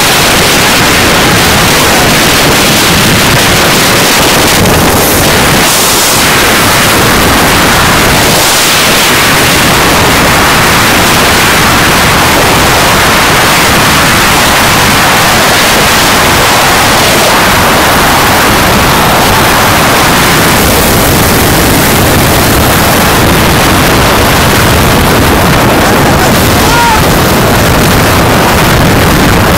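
Loud, steady rush of wind blasting over the microphone of a phone filming from a moving car, with gusty low rumble.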